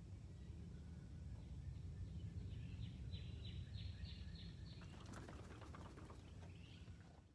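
A small bird chirps a quick run of about seven notes, roughly three a second, over a steady low rumble. Then a brief rattling flutter sounds as a mare shakes her head, a sign she is releasing tension after an inner-ear rub.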